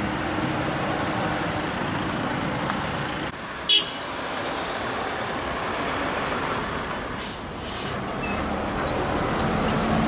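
Road traffic passing on a bend: cars and a tour bus driving by, with steady engine and tyre noise. A short, sharp horn beep sounds about three and a half seconds in, and brief high hisses come near the eight-second mark.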